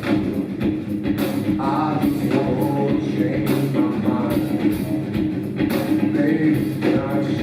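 Live rock band playing, with the drums keeping a steady beat under a dense low end and a melodic line that comes and goes over it.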